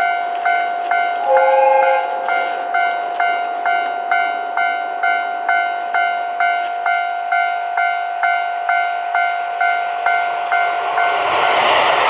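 Japanese level-crossing warning bell ringing in an even rhythm, a little over two strikes a second. About a second and a half in, a brief two-note horn sounds from the approaching train. Near the end the noise of a limited express diesel train grows as it arrives and drowns the bell.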